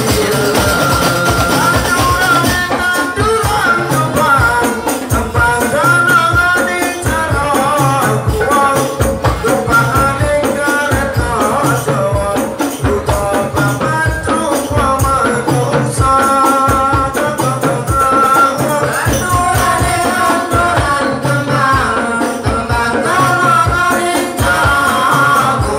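Live sholawat, Islamic devotional singing: voices carry a wavering melody over steady hand-drum beats and a continuous rattling, jingling percussion.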